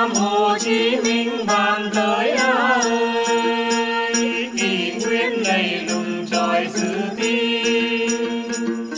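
Tày Then folk singing: voices in unison holding long notes with a wavering vibrato, accompanied by đàn tính lutes and a steady jingling beat from a hand-held bell rattle.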